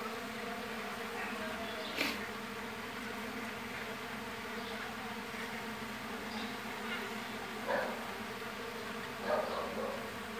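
Mandaçaia stingless bees (Melipona quadrifasciata) buzzing steadily as a colony. A few short rustles and clicks from the brood comb being handled come about two seconds in and twice near the end.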